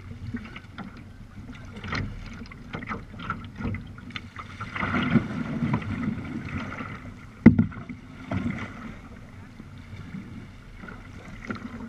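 Sea kayak being paddled: paddle blades splashing and dripping in the water, with scattered small knocks and one sharp knock about seven and a half seconds in.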